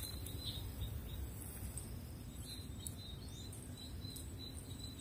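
Outdoor ambience: a steady high insect drone with a few faint bird chirps over a low rumble.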